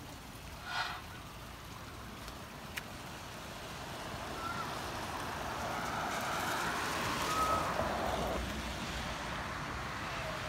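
Tyre hiss of a vehicle passing on a wet road, swelling from about four seconds in and easing off near the end, with a few short bird chirps over it.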